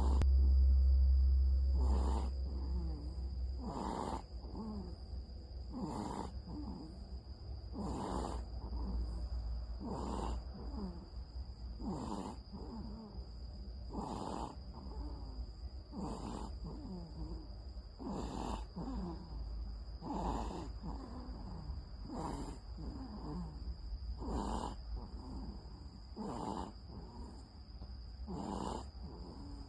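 Snoring in a steady rhythm, about one snore every two seconds, with a low rumble in the first few seconds.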